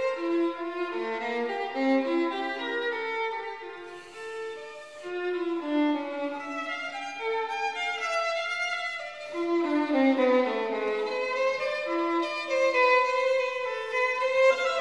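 Background music led by a violin playing a melody over lower strings, dipping softer briefly about four seconds in.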